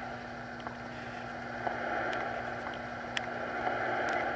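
Steady background hiss with a constant low hum, and a few faint clicks in the second half from handling the camera as it zooms in.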